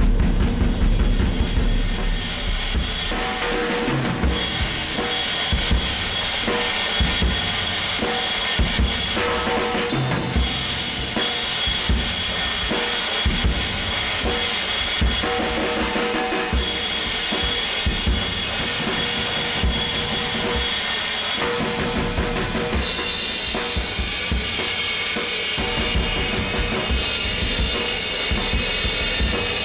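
A drum kit being played continuously, with steady hits throughout.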